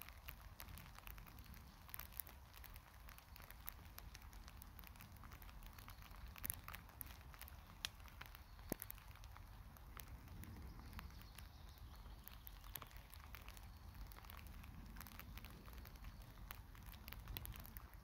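Faint, scattered ticks of light rain falling on leaves and dry grass, over a low steady rumble.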